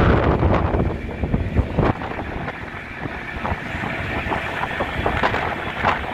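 Wind buffeting the microphone: a gusty low rumble with scattered clicks, heaviest in the first two seconds and then easing.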